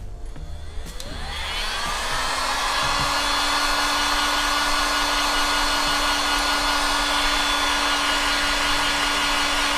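Electric heat gun switched on about a second in. Its whine rises as the fan spins up, then it runs steadily with a rush of air as it shrinks heat-shrink tubing over soldered wire joints.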